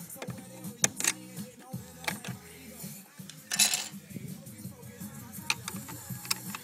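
Sharp plastic clicks and knocks from a fire alarm manual call point being handled and fitted to the wall, with a short rustling hiss about halfway through. Music plays underneath.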